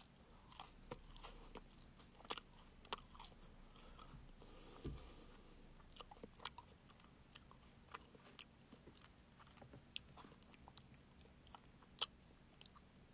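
Faint crunching and chewing of a chocolate ice-cream waffle cone, heard as scattered small crackles and clicks, with a sharper click about twelve seconds in.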